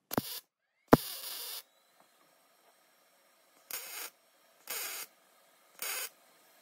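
Electric welder tack-welding a steel support bar in place: five short bursts of buzzing noise, each under a second, with pauses between them.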